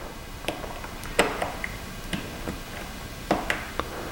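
Small, sharp clicks and taps, irregularly spaced, with the loudest a little over a second in. They come from the Redmi Note 5 Pro's bottom speaker module as it is handled and seated into the phone's frame.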